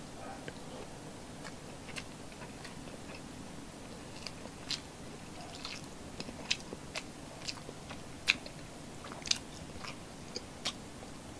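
Close-miked chewing and wet mouth smacks of someone eating rice and milkfish with her hands: a soft steady chew with sharp, irregular clicks and smacks that come more often in the second half.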